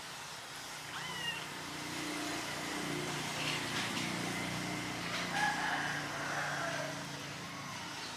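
A kitten being bottle-fed gives a short mew about a second in. Under it a low hum swells and fades, and a rooster crows in the distance about five seconds in.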